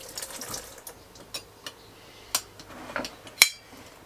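Scattered light clinks and taps of a glass canning jar and kitchen utensils being handled, with a sharper click a little past three seconds in.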